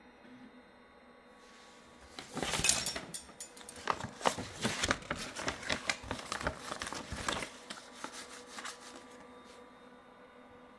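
A sheet of printer paper rustling and crinkling in irregular bursts for about five seconds as it is handled and slid under the 3D printer's nozzle, the paper test for setting the Z offset.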